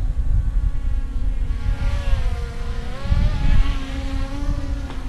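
Yuneec Mantis Q quadcopter hovering close by, its propellers giving a steady whine of several tones that dip and rise in pitch in the middle as the motors change speed, over a low wind rumble.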